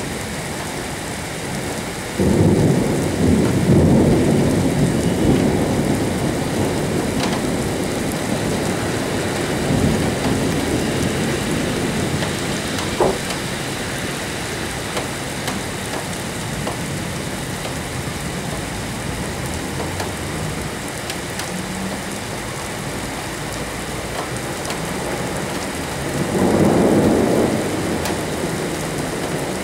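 Steady rain with thunder: a sudden thunderclap about two seconds in that rumbles on for several seconds, a softer rumble around ten seconds, and another clap with rumble near the end.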